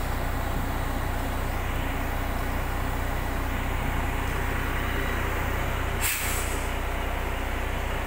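Heavy truck engine running steadily, with a short sharp burst of air hiss about six seconds in.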